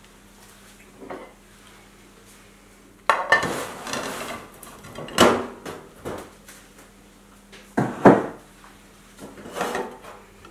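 Ceramic dishes clattering on a steel worktop: a china plate set down and slid into place next to a baking dish, then several sharp knocks as the plate and dish are handled.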